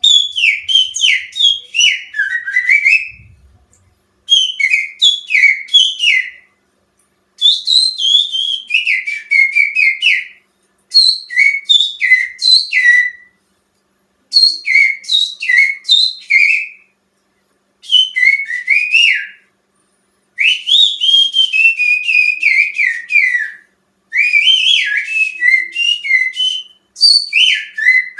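A person whistling through their fingers in imitation of a cucak ijo (greater green leafbird) song, used as a lure for songbirds. The whistle comes in about nine phrases of quick, sliding high notes, each two to three seconds long with short gaps between.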